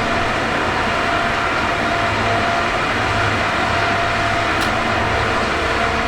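Water-mist fan running steadily: an even rushing noise with a faint steady hum.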